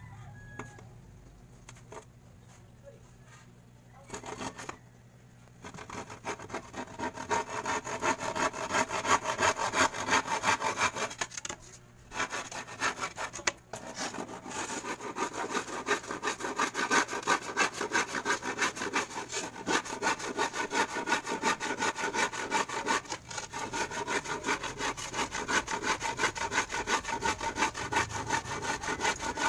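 Handsaw cutting through plywood in quick back-and-forth strokes. The sawing starts after a few quiet seconds and pauses briefly partway through.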